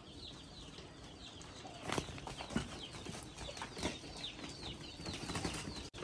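Faint chirping and clucking of farm birds, chickens among them, with a few short soft knocks.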